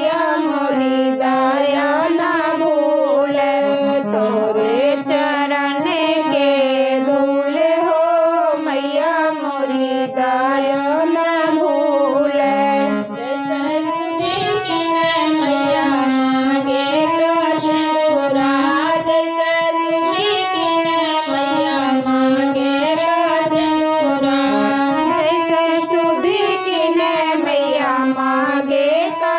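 Women's voices singing a Bagheli devi geet, a devotional folk song to the goddess, together with a harmonium accompanying them.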